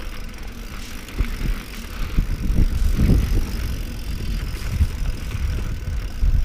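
Mountain bike riding down a rocky trail: tyres rolling over rock and the bike rattling over bumps, a constant low rumble broken by many irregular knocks.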